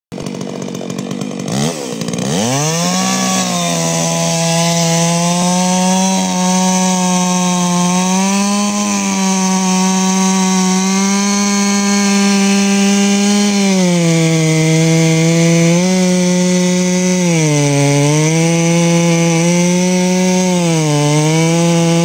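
Chainsaw revving up to full throttle about two seconds in, then running steadily as its bar cuts through a thick eucalyptus trunk in a felling cut. Its pitch sags briefly a few times near the end as the chain loads up in the wood.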